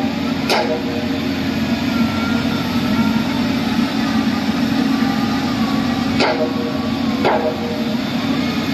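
Heavy machine's engine running steadily with a wavering whine as it digs soil out from inside a bridge pillar, with three sharp knocks, one about half a second in and two more near the end.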